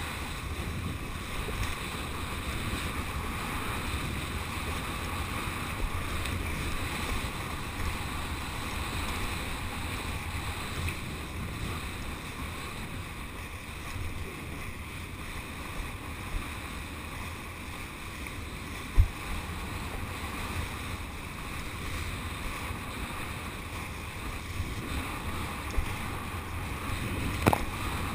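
Steady wind buffeting a kiteboarder's point-of-view camera microphone, with water rushing and hissing under the board as it rides across the chop. A couple of sharp knocks stand out, the loudest about two-thirds of the way in and another near the end.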